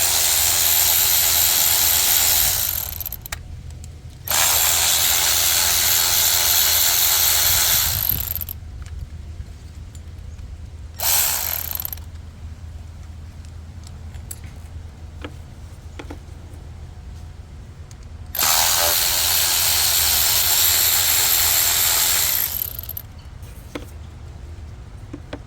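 Cordless power tool spinning out T30 Torx bolts from a PCV valve, in four runs of a second to about four seconds each, the shortest near the middle.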